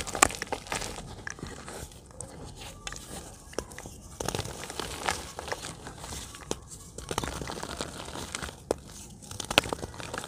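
Dry chunks of yellow dirt crushed and snapped apart by hand over a bucket of loose soil: an irregular run of crisp snaps and crunches, with grit trickling between them.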